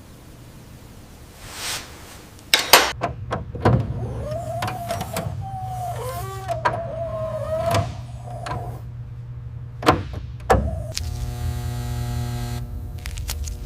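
A few sharp mechanical clicks and knocks, then a small electric motor whirring with a wavering whine over a steady low hum, and near the end a steady electric buzz.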